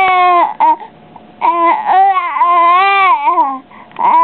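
Baby babbling in long, drawn-out vowel sounds whose pitch wavers up and down: a short one ending about half a second in, a longer one of about two seconds starting around a second and a half in, and another beginning near the end.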